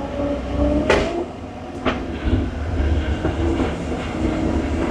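Excavator's diesel engine running with a steady low rumble, with two sharp metallic knocks about one and two seconds in, while the machine is slipping on a slick hillside.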